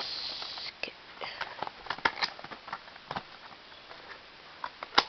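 Handling of a small cardboard retail box as it is opened: a short rustle of card sliding at the start, then scattered light clicks and taps of fingers and flaps on the cardboard, with a sharper click near the end.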